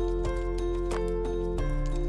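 Background music: held notes over a steady beat of about three strokes every two seconds, with the chord changing about one and a half seconds in.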